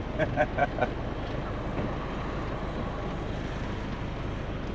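Caterpillar 3406B diesel in a Peterbilt 362 cabover idling steadily, heard from inside the cab.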